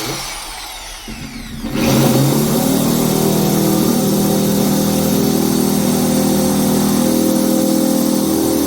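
Electric hammer drill with a concrete bit, set to plain drilling mode with the hammer action off, boring into a concrete block. The motor spins up, then about two seconds in the bit bears on the block and the drill runs loud and steady, with no hammering beat. This is the wrong setting for concrete, which the demonstration sets out to show.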